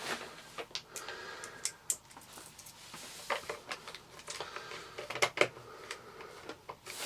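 Scattered light clicks and taps of small screwdriver bits being handled and picked through in a precision screwdriver set.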